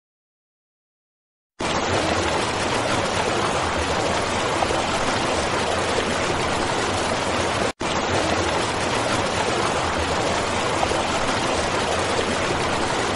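Silence for about the first second and a half, then a steady rush of flowing river water, broken for an instant about eight seconds in.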